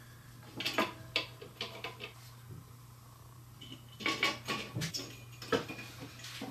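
Light clicks and metallic clinks of a steel saw blade and its pins being handled and seated into the wooden arms of a frame saw. They come in two clusters, one about half a second in and one about four seconds in, over a steady low hum.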